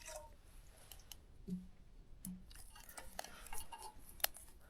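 Small wood-burning camp stove burning while water heats on it, giving faint, irregular sharp clicks and crackles.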